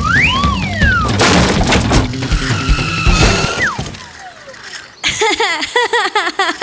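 Cartoon soundtrack: background music with a whistling pitch glide that rises and falls, then a crashing, shattering noise about a second in, and more sliding tones after it. Near the end the music drops out and a quick run of high, chirping voice-like sounds follows.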